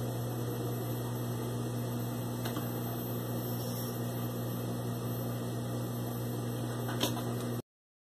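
Industrial sewing machine's motor humming steadily, with no stitching rhythm, and a light click about seven seconds in. The sound cuts off abruptly near the end.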